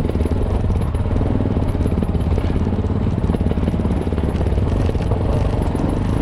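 Enduro motorcycle engine running steadily at low speed along a narrow dirt trail, a dense, low, evenly pulsing engine note.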